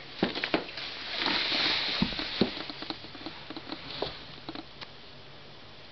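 Scuffling, scratching and light tapping as a live mouse and a corn snake move about the feeding enclosure, with a short rustle about a second in; the taps thin out near the end.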